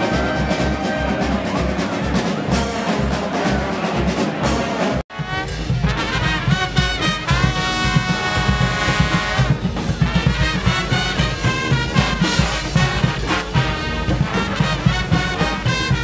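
Street band music with a steady low drum beat. It cuts off sharply about five seconds in and gives way to a brass band of trumpets, trombones and sousaphones playing over drums.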